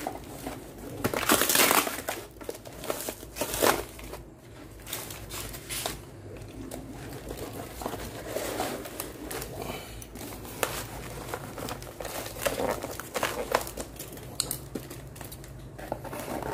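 Cardboard packaging crumpling and tearing as a heavy battery is worked out of its box, in irregular rustling bursts, loudest about one to two seconds in.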